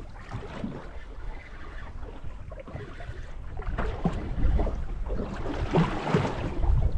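Wind rumbling on the microphone with water lapping against a small boat's hull, growing louder about halfway through.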